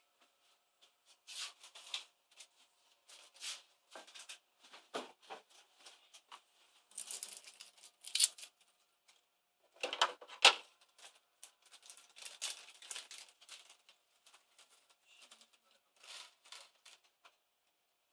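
Irregular rustling and light handling noises of someone rummaging among small parts for screws, with the loudest bursts about ten seconds in.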